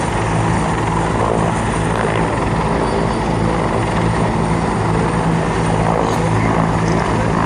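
Military search-and-rescue helicopter, a CH-146 Griffon, hovering with a steady drone of its engine and rotor.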